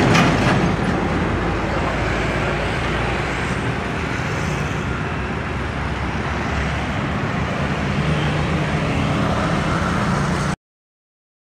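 Road traffic going by: motorcycle and truck engines and tyre noise, a steady mix with a low engine rumble. It cuts off suddenly about a second before the end.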